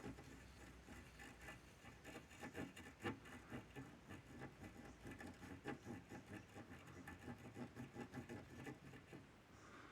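Faint, quick small clicks and scrapes, several a second, from a soldering iron tip working over the circuit board's HDMI port pads.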